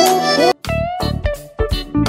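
Background music: held chords cut off abruptly about half a second in. A different tune follows, with a steady beat and short notes that slide in pitch.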